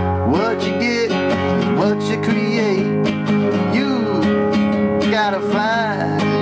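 Music: strummed acoustic guitar under a lead melody that glides and bends in pitch, with a wavering line near the end.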